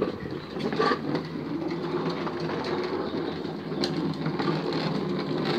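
Hard plastic wheels of a ride-on twist car rolling over rough concrete: a steady, continuous rumble.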